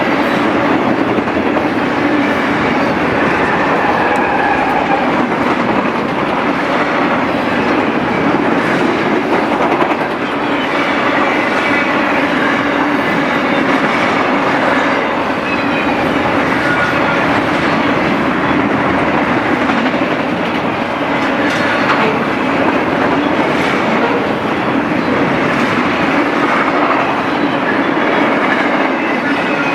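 Freight train cars rolling past at steady speed, steel wheels clattering over the rails, with now and then a faint wheel squeal.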